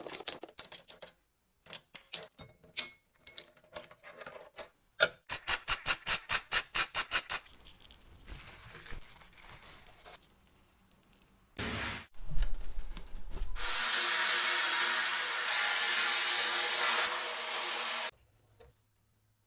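Workshop tool sounds: scattered clicks, then a run of about a dozen rhythmic strokes at roughly four a second. A steady hiss with a faint hum follows for about four seconds and cuts off suddenly.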